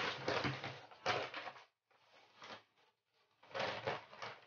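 Paper shopping bag rustling and crinkling as clothes are pulled out of it, in irregular bursts with short pauses between them.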